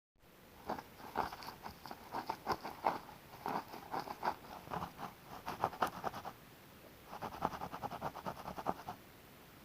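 Rapid scratching strokes in quick bouts, pausing a little past six seconds, resuming about seven seconds in and stopping around nine seconds.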